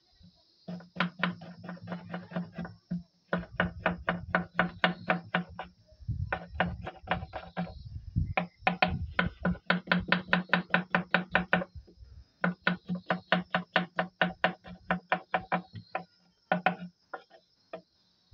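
Kitchen knife slicing an onion on a chopping board: quick, even knocks about five a second, in runs of a few seconds broken by short pauses.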